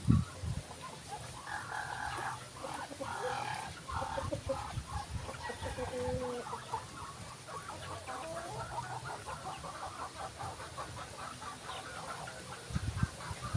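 Chickens clucking, short calls with quicker runs of notes in the middle, and a few low thumps at the start and again near the end.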